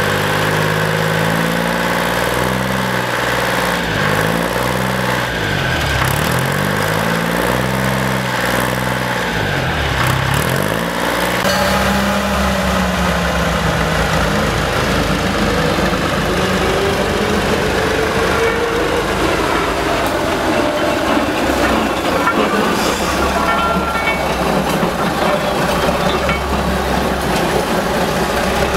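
Diesel switcher locomotive engine running at idle, a continuous low rumble. Its tone sweeps up and down for the first ten seconds or so, then settles.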